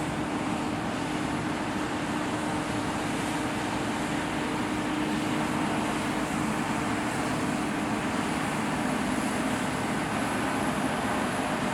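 Combine harvester running steadily: a dense, even mechanical drone with a constant low hum and a faint high whine that grows stronger in the second half.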